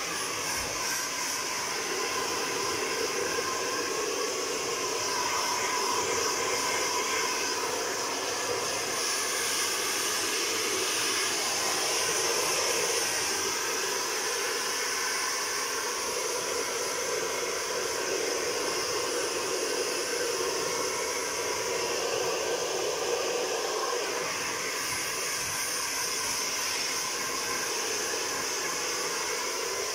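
Handheld hair dryer blowing steadily, its sound wavering slightly as it is moved about over a wet dog's fur.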